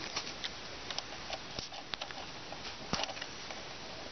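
Small irregular clicks and taps of terminal caps and test-lead plugs being fitted to the terminal posts of an M416 resistance meter, with a sharper click about three seconds in.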